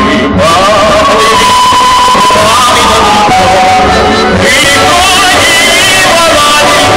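Loud music: a song with a male voice singing a held, bending melody over a steady accompaniment.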